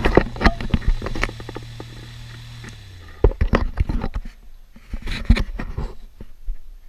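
A loud click, then a fan motor's steady low hum that winds down and dies out about three seconds in. Clicks and knocks of a switch and handling follow.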